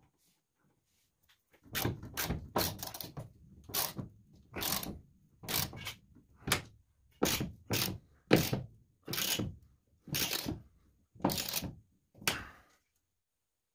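Socket ratchet wrench tightening a nut on a bolt through a boat transom: a series of short ratcheting strokes, roughly one a second. They start about two seconds in and stop near the end.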